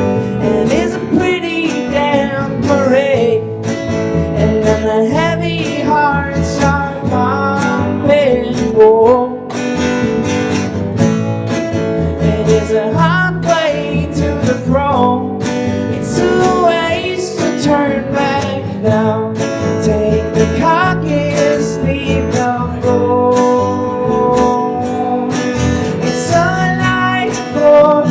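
Acoustic guitar strummed through a song, with a wavering melody line over the chords.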